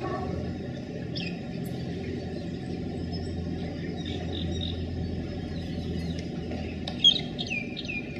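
Small birds chirping in short, falling notes over a steady low rumble, with a sharp loud sound about seven seconds in followed by a quick run of chirps.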